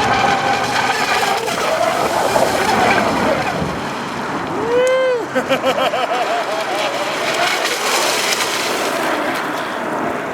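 Pro Boat Miss Geico RC race boat's battery-powered motor whining over the hiss of water, its pitch rising and falling as the throttle changes, with a quick rise and fall in pitch about halfway through.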